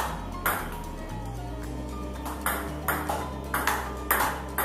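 Sharp clicks of a table tennis ball being struck and bouncing: one about half a second in, then six more at uneven spacing in the second half. Background music with held chords plays underneath.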